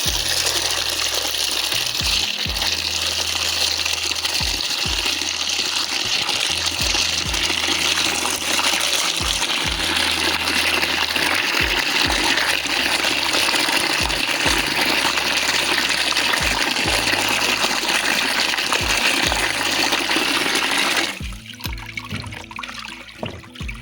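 Water pouring or running in a steady gush, which stops abruptly about three seconds before the end.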